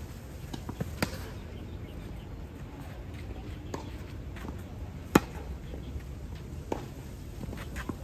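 Tennis rally on a clay court: a sharp pop each time a racket strikes the ball, a second or two apart, the loudest about five seconds in from the near player, with fainter hits and bounces from across the net.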